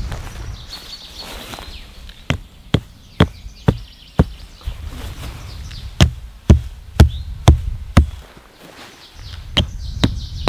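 Rocks of a stone campfire ring clacking against each other as they are lifted out and set down: about a dozen sharp stone-on-stone knocks, roughly two a second, with a pause in the middle.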